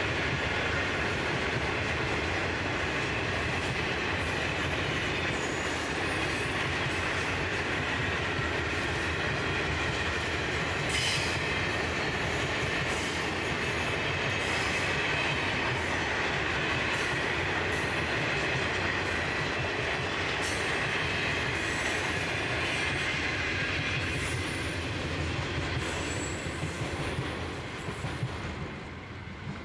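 Loaded grain hopper wagons rolling past on steel rails: a steady rumble of wheels with a high squeal and scattered clicks from the wheels. The sound fades near the end as the last wagon draws away.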